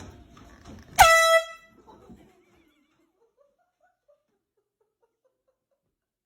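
An air horn blasts once about a second in: a sudden, very loud, shrill honk lasting about half a second.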